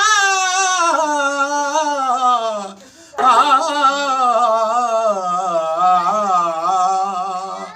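A man singing a qasida unaccompanied, drawing out long wavering notes. One falling phrase is followed by a short breath a little under three seconds in, then a second long held phrase.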